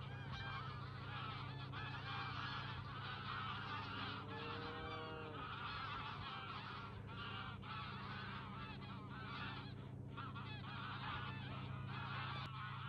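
A large flock of migrating birds flying high overhead in long lines, many of them calling at once in a dense, unbroken chorus. A steady low hum sits underneath.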